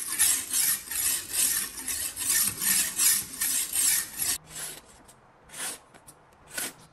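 Coarse sharpening stone rubbed rapidly back and forth along a steel kitchen knife edge, a gritty rasp at about four strokes a second. The strokes stop about four seconds in, followed by three quieter swishes of the sharpened blade slicing paper.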